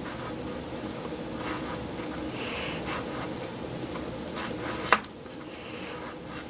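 Single-edge razor blade sawing through thick wool felt, a series of short scratchy strokes, with a sharp click about five seconds in.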